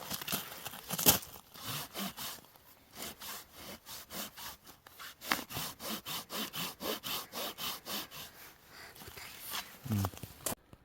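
Hand saw cutting through a firewood log in quick back-and-forth strokes, about three a second, until the sawing stops abruptly near the end.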